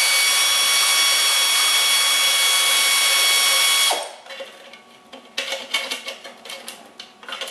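A power ratchet on a long extension spins out an inspection-plate bolt under the bellhousing: a steady whine over a hiss that cuts off sharply about four seconds in. Light metallic clicks and clatter of the tool and loosened bolt follow.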